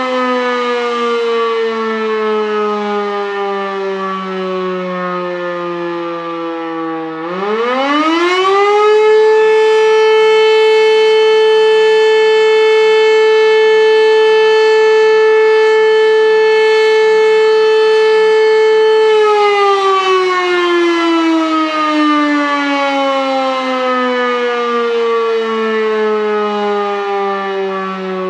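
E57 electromechanical siren sounding one of the long tones of the fire alarm signal. Its pitch falls as the rotor coasts down, then about seven seconds in it spins up quickly to a steady, loud howl held for about ten seconds, and then winds down again with a slowly falling pitch.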